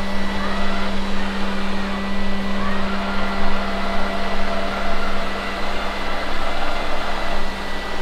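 Lefant F1 robot vacuum cleaner running on carpet: a steady motor and suction-fan drone with a low hum and a thin high whine.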